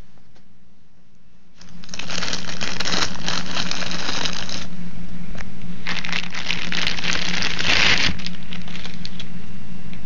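Clear plastic bag crinkling and rustling in two long stretches as a laptop AC adapter is unwrapped by hand, over a steady low hum.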